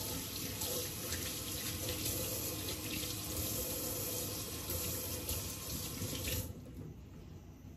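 Kitchen faucet running into a stainless steel sink as hands are washed, shut off about six and a half seconds in.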